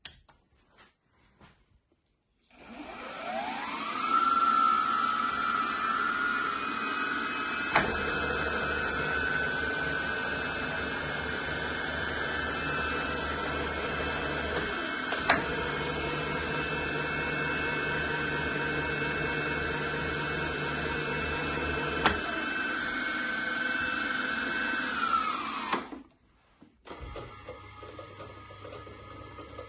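Electric motor of a milling machine's Z-axis power feed starting with a rising whine, running steadily with three sharp clicks along the way, then winding down and stopping near the end.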